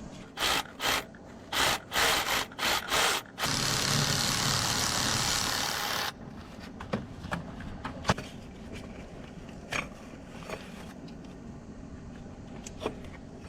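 A socket wrench working the bracket bolts off a Ford engine's intake manifold. It makes a quick run of about eight short rasping strokes, then a steady rasp lasting nearly three seconds that stops suddenly, then a few scattered small metal clicks.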